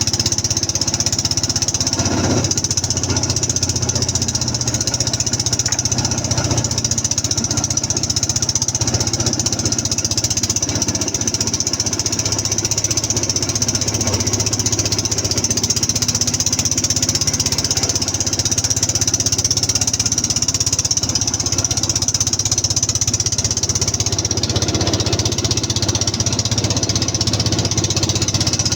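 Boat engine running steadily at a constant speed, with a steady high hiss over it.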